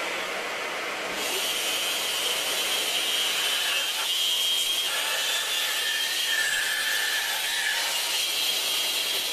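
Bandsaw sawing through a small cherry log fed along the fence, a steady run with a high whine; the blade bites into the wood about a second in and keeps cutting steadily.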